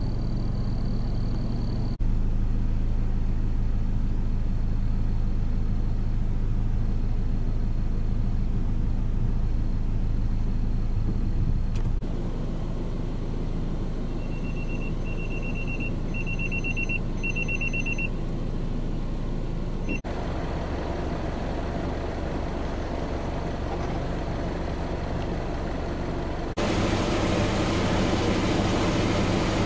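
Steady low hum of a running vehicle engine with road-side background noise, the background changing abruptly several times. For a few seconds in the middle, a run of short high electronic beeps sounds in about four quick groups.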